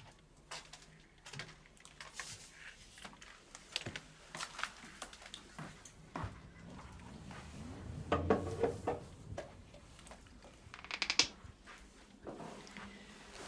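Quiet rustling and small knocks of someone moving about a bedroom and getting into bed: soft footsteps, bedding and clothes rustling, with a louder shuffle and bump about eight seconds in and a short sharp rustle about eleven seconds in.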